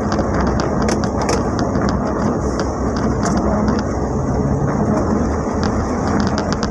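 Heavy rain striking the roof and windshield of a moving Mitsubishi L300 van, many irregular drop ticks over a steady drone of engine and road noise inside the cab.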